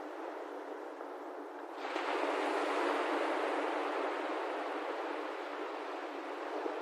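Ocean waves washing on a shore, a steady hiss with no low rumble; a little under two seconds in a wave breaks and the wash swells louder, then slowly ebbs.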